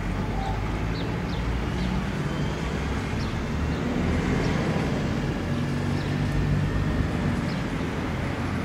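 Steady low mechanical drone with a few faint pitched notes that shift slightly in pitch, and several short bird chirps over it.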